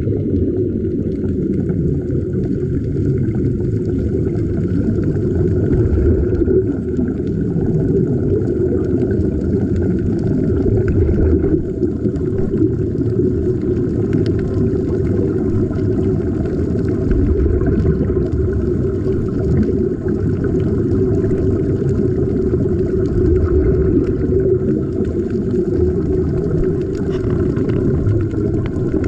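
Steady, muffled low rumble of water heard underwater, with air bubbling from the sea-walk diving helmets.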